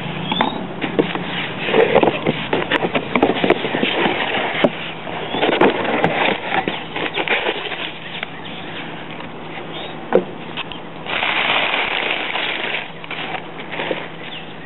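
Cardboard and packing material crackling, rustling and scraping as a shipping box is opened and its contents unpacked, with many irregular sharp crackles and a longer rasping stretch about eleven seconds in.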